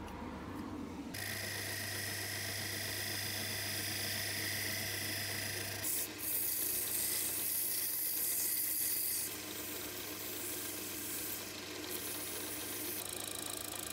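Metal lathe running steadily with a hum and whine while abrasive paper is held against the spinning wooden pepper grinder body. The sanding hiss is loudest from about six to nine seconds in.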